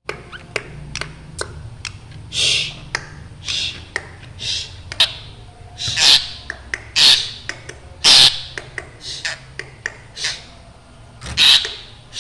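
Black drongo giving a series of harsh, rasping calls, about one a second, with short sharp clicks between them.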